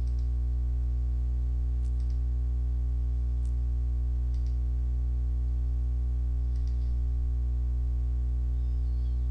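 A steady low hum throughout, with a few faint, scattered computer mouse clicks as pages are added and a checkbox is set in the card-design software.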